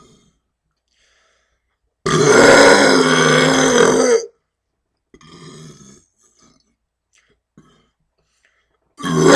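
A man's deliberate, loud burp lasting about two seconds, then a faint short sound, and a second loud burp starting near the end.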